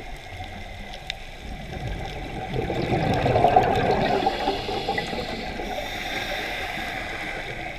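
Scuba diver's exhaled bubbles gurgling and rushing from the regulator, swelling about two seconds in and fading out, with a brief higher hiss near the end.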